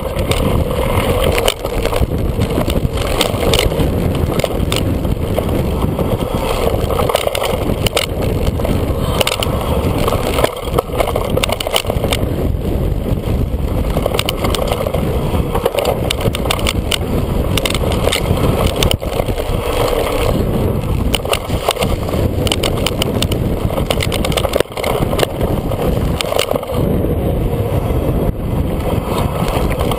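Mountain bike descending fast, heard from a camera on the bike: steady wind rush on the microphone with frequent clattering knocks and rattles as the bike and its tyres run over rough, leaf-covered dirt trail.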